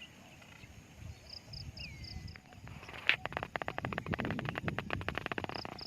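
Birds calling: a quick series of high chirps and a falling whistle, then a rapid run of clicks lasting about two and a half seconds, starting with one sharp click about three seconds in.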